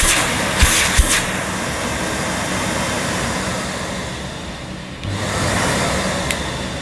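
Hoover Sensotronic System 3 cylinder vacuum cleaner running, with a couple of clicks of the hose-handle switch about a second in. The motor winds down about four seconds in and starts up again about a second later: the power switching through the non-original hand grip is unreliable.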